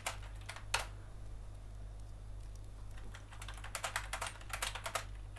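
Typing on a computer keyboard in short runs: a few keystrokes in the first second, then a quicker cluster about three to five seconds in, over a steady low hum.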